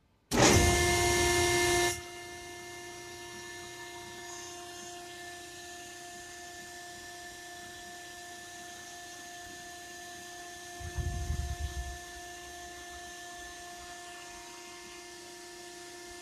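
Hydraulic pump whine, a steady hum with several fixed tones, as a Perkins hydraulic garbage-container lifter raises and tips its frame. It opens with a loud hiss lasting about a second and a half, and a brief low rumble comes about eleven seconds in.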